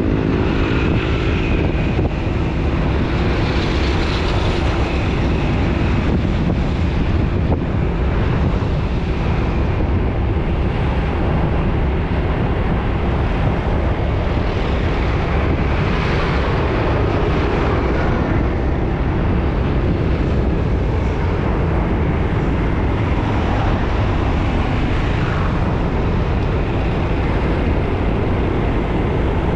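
Busy road traffic passing in a steady stream, a continuous din of engines and tyres. One vehicle's engine note fades away in the first second.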